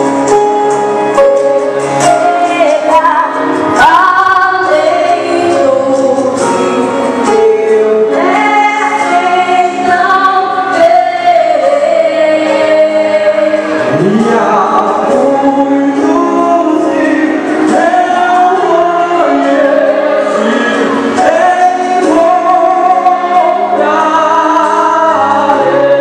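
Girls' youth choir singing a gospel hymn in parts, with held notes, female voices leading.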